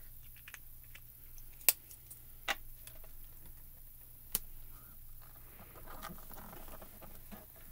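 Small plastic clicks and taps from handling a mini ink cube and a stamping platform, three sharp ones standing out, then soft rubbing as hands press down on the closed platform lid.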